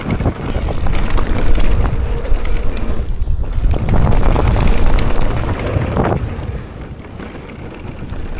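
Wind rushing over the microphone of a mountain bike riding down a dirt downhill trail, with the tyres and bike clattering over rough ground in many small knocks. The rush eases somewhat near the end.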